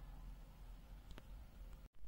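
Near silence: room tone with one faint click about a second in.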